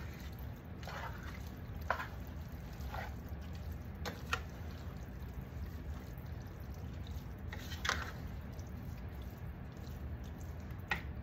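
A wet mix of diced tomatoes, vegetables and ground turkey stirred in a skillet with a slotted spatula. Short squelches and scrapes come at uneven intervals, several in the first few seconds and a couple more later, over a steady low hum.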